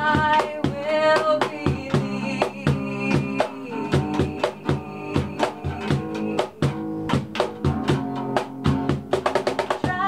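Live acoustic band: two acoustic guitars strumming and a cajón beating a steady rhythm. A woman sings over them at the start and comes back in near the end, with an instrumental stretch between.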